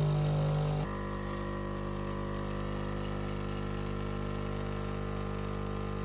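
Philips 5400 Series bean-to-cup machine's water pump running with a steady hum as it pushes hot water through the ground coffee, a little louder for about the first second and then level.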